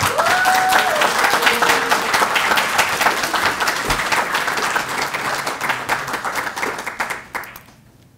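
Audience applauding in a steady burst of clapping that fades out near the end.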